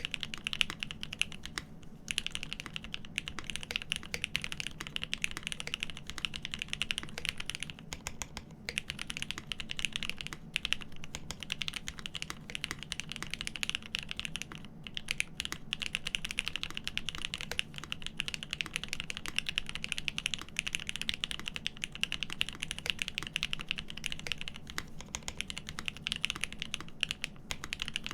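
Continuous fast typing on a GEON F2-84 mechanical keyboard with Cherry Top SP Star switches on an aluminium plate: rapid, dense key clacks, broken by brief pauses a few times.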